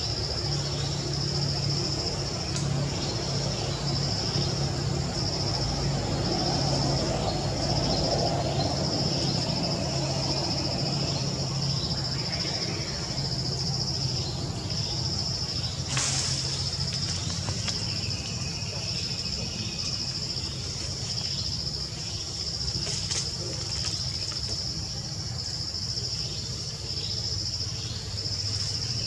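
Forest insects in a steady chorus, a high-pitched pulsing drone, over a low hum, with one brief click about halfway through.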